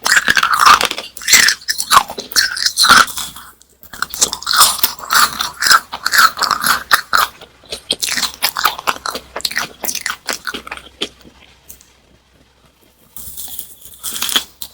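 Close-miked crunching and chewing of a crisp snack: dense, sharp crackling bites that go quiet for a moment near the end, then resume.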